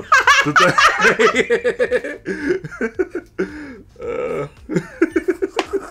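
Laughter, in several bursts of quick, rhythmic pulses.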